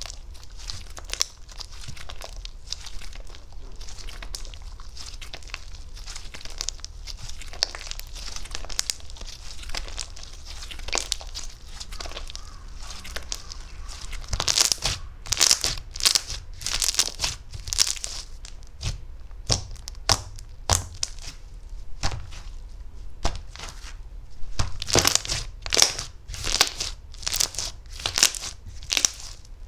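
Butter slime being squished and pressed by hand, making a run of soft crackling clicks and pops. The pops come louder and in quick bunches about halfway through and again near the end, over a low steady hum.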